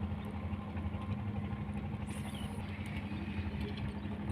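An engine running steadily at a constant speed, with an even low hum.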